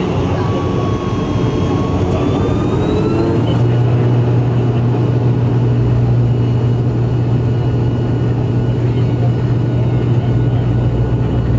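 ATR 72-500 turboprop engines heard from inside the cabin, their whine rising as power is brought up for the takeoff roll. About three and a half seconds in, a deep steady propeller drone sets in and holds as the engines settle at takeoff power.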